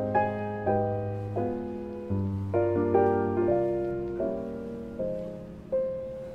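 Background music: a soft solo piano playing slow chords and melody notes, each struck and left to fade.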